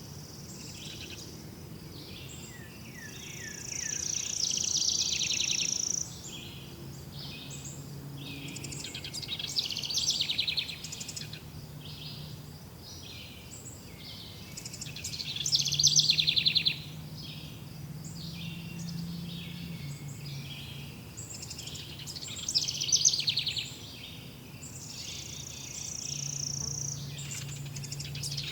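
Several forest birds singing and calling over one another, with repeated fast trills and a held high whistle, louder bursts coming every few seconds. A faint low drone runs underneath.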